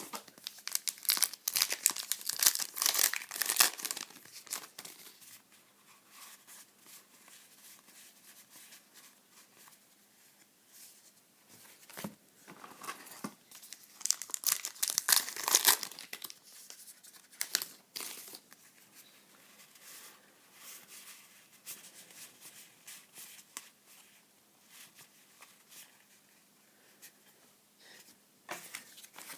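Trading-card pack wrappers being torn open and crinkled, loudest in two bursts, one about a second in and one about halfway through, with quieter rustling and clicks of cards being handled between.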